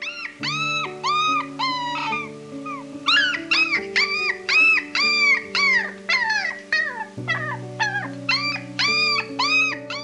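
Small dog yapping in a quick run of short, high yelps, about two to three a second with a couple of brief pauses, over soft background music.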